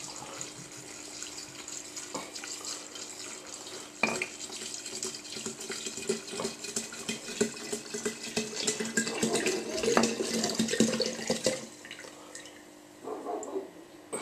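Vodka being poured from its bottle into a glass jar packed with cherries and sugar: a steady splashing pour that gets louder about four seconds in and stops near the end.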